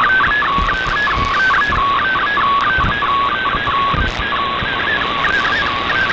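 Shortwave MFSK digital-mode data signal from the RadioGram broadcast, heard through a receiver: one tone at a time hopping rapidly between a handful of pitches in a warbling pattern, over steady radio hiss with occasional low crackles of static.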